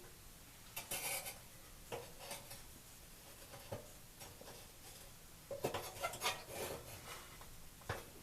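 Small metal parts of a gas water heater's burner and thermocouple assembly being handled while it is put back together: light clinks, scrapes and clicks in short clusters, about a second in and again around six seconds, with a sharp click near the end.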